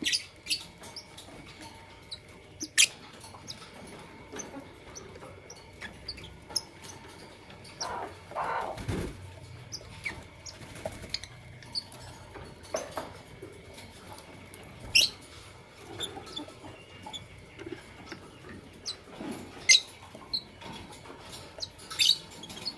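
Fischer's and masked lovebirds giving short, sharp, high-pitched chirps at irregular intervals, with one longer, lower sound about eight seconds in.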